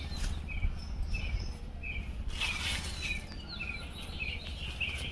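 Small birds chirping in the trees, one short chirp repeating about twice a second with a few higher calls mixed in, over a low steady rumble of wind on the microphone.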